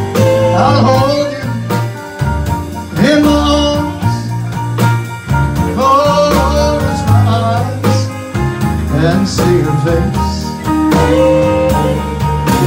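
Live band playing a song: a man sings into a microphone over electric keyboard, fiddle and acoustic guitar, with a steady bass line underneath.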